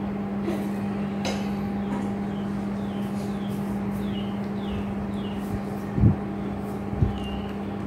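A steady low hum runs throughout, under a small bird chirping in short, high, falling notes about twice a second. Two dull thumps come about six and seven seconds in.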